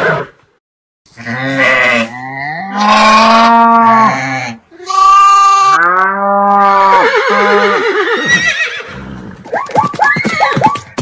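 A string of farm-animal calls used as cartoon sound effects: after a brief silence, two long drawn-out pitched calls, then a wavering call, then a quick run of short calls near the end.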